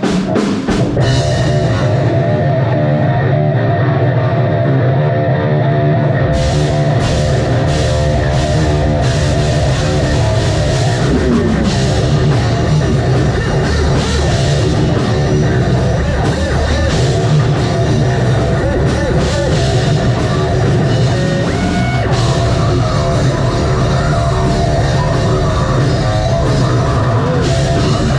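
Live metal band playing loud: heavy distorted guitars and bass start a riff, and the full drum kit with cymbals comes in about six seconds in.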